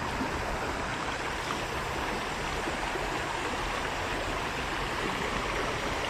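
Creek water running steadily, an even rushing noise with no clear strokes or tones.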